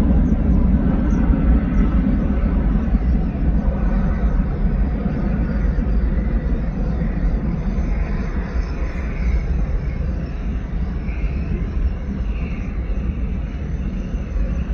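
Twin-engine jet airliner taking off, its engines giving a heavy low rumble that slowly fades as it climbs away. A whining engine note fades out over the first few seconds.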